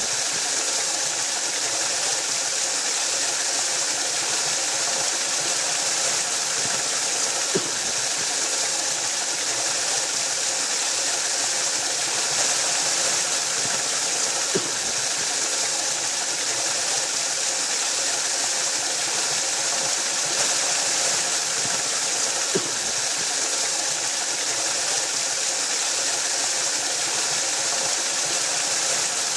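Waterfall: a steady rush of falling water, a dense hiss strongest in the upper range, with a faint tick about every seven seconds.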